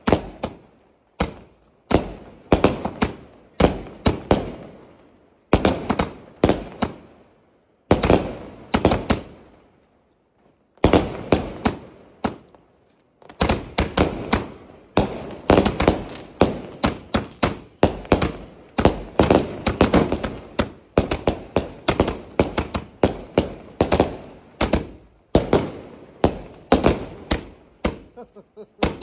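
A 240-shot firework cake firing: a rapid run of sharp bangs as shots launch and burst overhead, coming in volleys with a few short pauses, the longest about a third of the way through.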